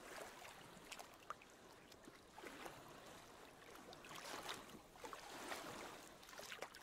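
Faint moving water with soft, irregular splashes.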